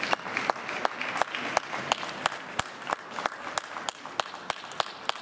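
Sharp, echoing clicks coming several times a second at irregular intervals.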